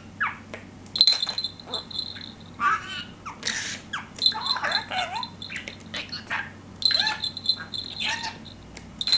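Budgerigar chattering and warbling in quick squeaky phrases, mimicking speech. A small bell toy tinkles briefly a few times.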